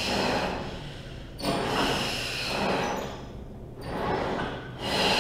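Pilates reformer footwork exercise: rushing, hiss-like swells of sound, one starting about a second and a half in and another near the end, as the carriage is pressed out and returned with paced breathing.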